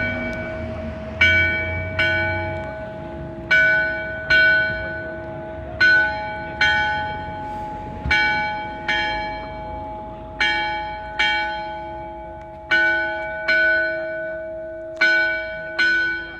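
Single church bell ringing the call to mass: strokes come in pairs, about a second apart, with a pair every two and a half seconds, and the hum of each stroke rings on into the next.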